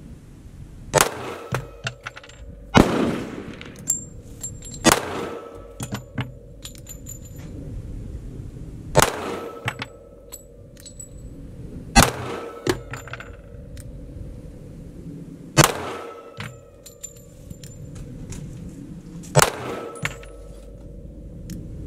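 .45 ACP semi-automatic pistol fired slow and deliberate: about seven sharp shots a few seconds apart. Each shot leaves a short ringing tail, and fainter clicks and pops come between them.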